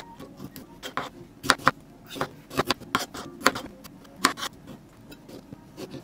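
Chef's knife cutting through cherry tomatoes, the blade knocking down on the cutting board in irregular sharp taps, some much louder than others.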